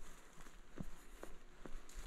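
Footsteps of a person walking at a steady pace, about two steps a second.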